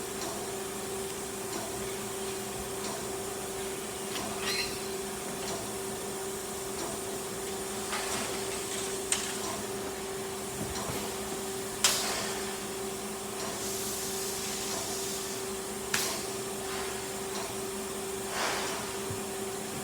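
CNC machine running with a steady electric hum holding a constant tone over a hiss. A few sharp clicks or knocks fall now and then, the loudest about twelve seconds in.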